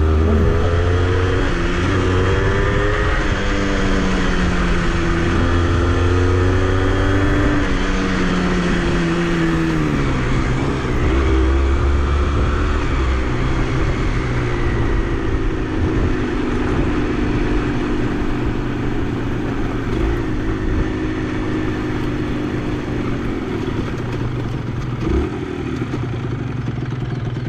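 Honda CRM80's two-stroke single-cylinder engine running, revs rising and falling for about ten seconds, then holding steadier. The bike has developed a strange noise the rider cannot trace.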